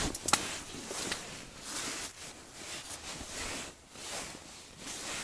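Rustling and handling noises as an ice angler pulls fishing line in by hand through a hole in the ice, in uneven swells. Two sharp clicks come right at the start.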